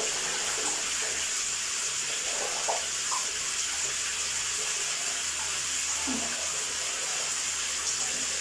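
Water running in a bathroom, a constant steady hiss.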